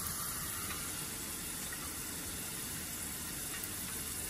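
Corn kernels coated in cornflour sizzling steadily as they deep-fry in hot oil.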